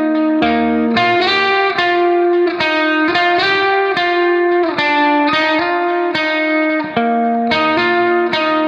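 Background music: a guitar melody, its notes changing about twice a second.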